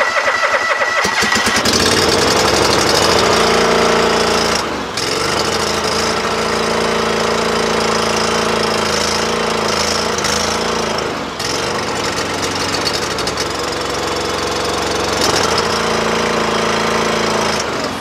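A riding lawn mower's 17 horsepower water-cooled Kawasaki engine cranks on the electric starter and catches about a second and a half in. It then runs steadily, with a few brief dips in level.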